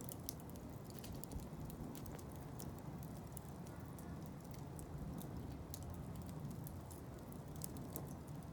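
Blocks of wood burning in a fire basket, crackling with frequent irregular sharp pops over a low steady rumble of the flames.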